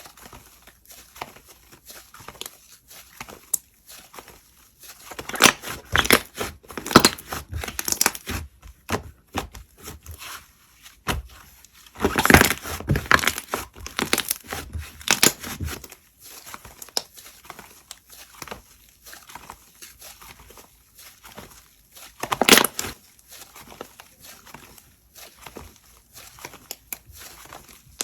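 Slime being squeezed, poked and stretched by hand: irregular crackling and crinkling clicks, with louder runs of crackles several times.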